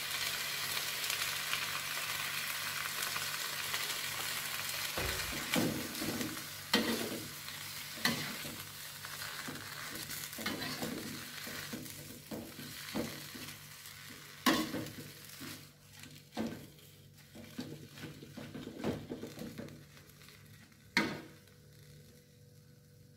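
Water spinach sizzling in a hot wok just after a splash of water goes in. The hiss is strong at first and dies away. From about five seconds in, a metal spatula scrapes and knocks against the wok as the greens are tossed.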